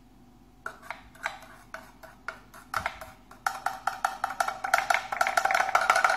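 Coffee beans clattering in the coffee grinder: a few scattered hard clicks that quickly thicken into a dense, ringing rattle, which cuts off suddenly.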